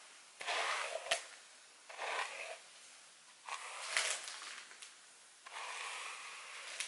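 A plastic-bristled detangling brush drawn through long dry hair: four brushing strokes, each a rustle lasting about half a second to a second, two of them with a short click.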